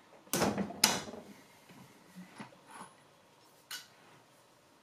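Two sharp metal clanks about half a second apart, followed by a few lighter clicks and one more tick: steel hand tools and sockets being handled against a transmission case and bench.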